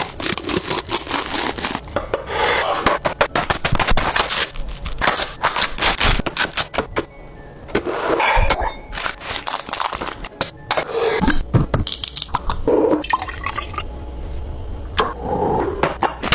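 Containers and small items being handled for a refill: rapid clicks, clinks and scrapes, with stretches of rushing, liquid-like noise.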